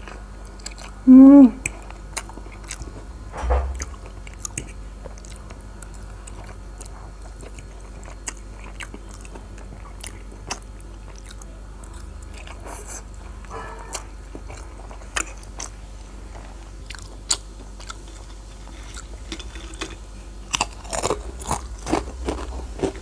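A person biting and chewing street food close to the microphone, with scattered crisp crunching clicks and wet chewing. A brief voiced "mm" about a second in, and the crunching grows busier near the end.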